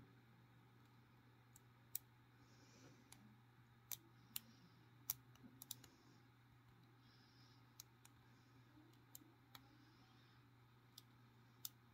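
Lock pick working the wafers of a small Union 3270 wafer padlock under tension: faint, sharp, irregular clicks, sometimes two or three close together, over a steady low hum.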